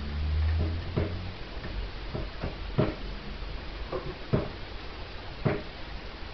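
Scattered light knocks and clicks, about eight at uneven intervals, from a border collie puppy playing with a toy on a kitchen floor. A low hum fades out about a second and a half in.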